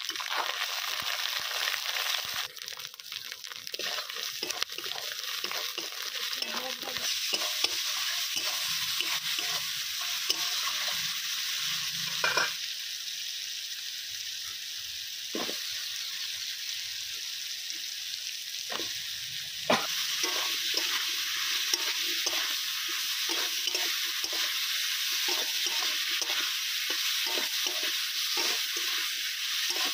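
Panch phoron and ginger-garlic paste sizzling in hot oil in a pan while being stirred, with the spoon knocking and scraping against the pan now and then.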